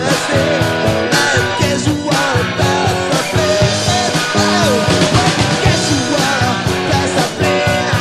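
Rock song with guitar, bass and drum kit playing at a steady beat, a melody line gliding above.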